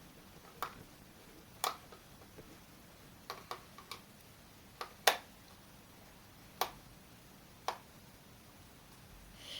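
Sharp, irregular clicks and taps of a small screwdriver working a tiny screw in a plastic toy siren's battery cover, about nine in all, the loudest about halfway through.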